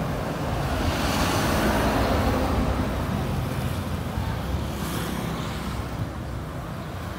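A car passes close by on the street, its tyre and engine noise swelling over the first two seconds and then fading away, over a steady low rumble of road traffic.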